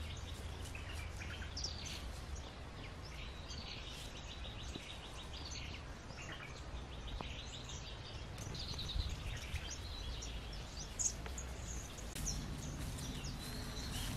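Small birds chirping and calling in quick, repeated short notes, over a steady low rumble.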